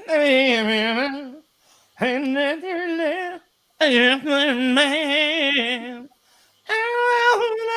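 A man humming a wordless tune with a wavering, vibrato-like pitch, in about four phrases of one to two seconds with short breaks between them.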